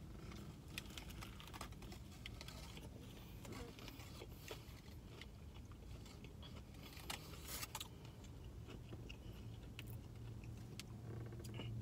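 Faint chewing of a crispy fried-chicken and bacon breakfast muffin: scattered small crunches and wet mouth clicks, over a low steady hum.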